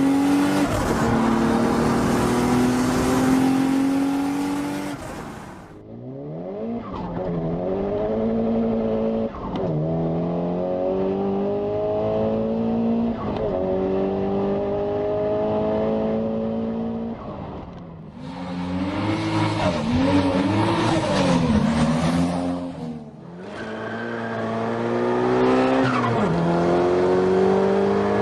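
Turbocharged car engines accelerating hard through the gears, in several short clips. The engine pitch climbs steadily, then drops sharply at each gear change, where the turbo flutters as the throttle lifts.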